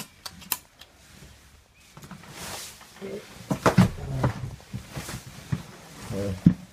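Handling noise and footsteps of a person moving through a cluttered room: a few sharp clicks in the first second, then knocks and rustling, with brief muffled voice sounds about halfway through and near the end.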